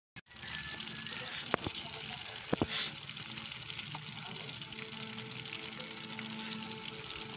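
Tomato and ground-meat spaghetti sauce cooking in a pan: a steady hiss of bubbling, with a few sharp clinks of the ladle against the pan between about one and a half and three seconds in.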